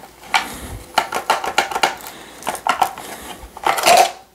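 Glock pistol with a SureFire X300 Turbo weapon light clicking and knocking against a Safariland 6360 RDS polymer duty holster as it is seated and worked in the holster. It is drawn out near the end with a louder clatter.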